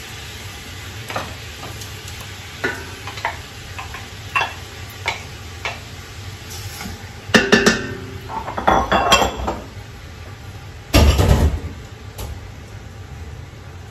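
Spoon tapping and scraping against a bowl and a stainless steel pot while grated tomato goes in on meat frying in oil, with a low sizzle underneath. Scattered light clicks give way to a louder clatter of utensils past the middle and one heavy thud about three seconds from the end.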